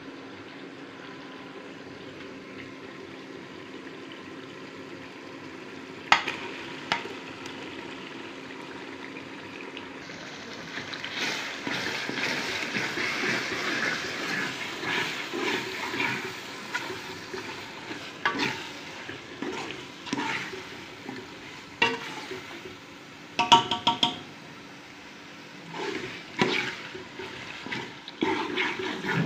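Chicken keema and masala frying in a metal pot, starting to sizzle about ten seconds in after a steady low hum. A metal spoon stirs it, knocking and clanking against the side of the pot several times.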